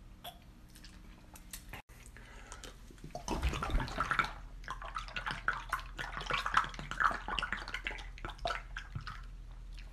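Liquid glugging and gurgling out of an upturned plastic bottle as a man chugs from it, with irregular gulps. It is very faint for the first few seconds and starts about three seconds in.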